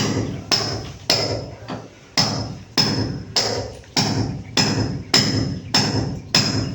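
Hammer blows struck steadily, about a dozen at a little under two a second, each with a short metallic ring.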